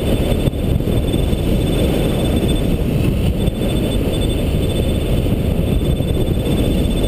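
Wind rushing over the microphone of a camera on a hang glider in flight, a loud, steady, low rush of air.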